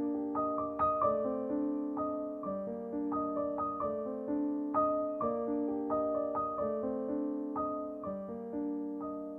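Background piano music: soft, steady notes played one after another in a gentle, even rhythm.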